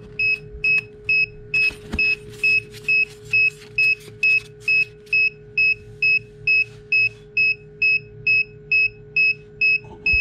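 Egg incubator's electronic alarm beeping steadily, about two and a half short high beeps a second, over the steady hum of its fan, with some clicks and rustling of the lid being handled in the first half.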